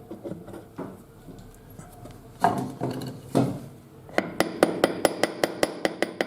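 Small hammer tapping on a steel gearbox shaft: a few separate knocks, then a fast even run of light metallic taps, about eight a second. This is peening or punching the shaft to take up play so the gear and bearing fit tight.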